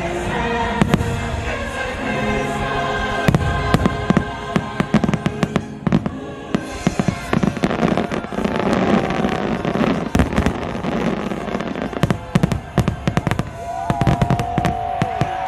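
Fireworks going off in rapid volleys of sharp bangs over orchestral and choral show music from loudspeakers. The bangs thicken into a dense barrage from about four seconds in, and a long whistle rises near the end.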